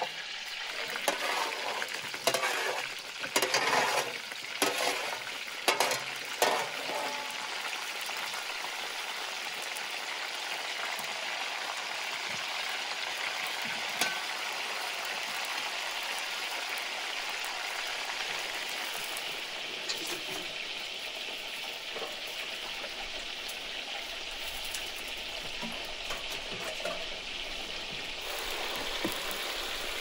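Whole potatoes tipped into a cauldron of hot fat with frying lamb, sizzling in loud, uneven bursts for the first several seconds. It then settles into a steady frying hiss.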